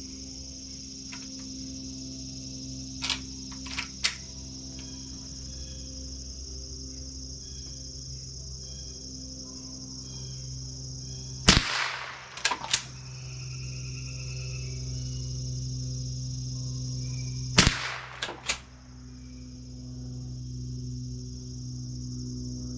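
Two .22 Long Rifle shots from a Remington Model 12 pump-action rifle, about six seconds apart, each followed within a second by a couple of quick clicks as the action is worked. A few lighter clicks come about three to four seconds in, and insects buzz steadily throughout.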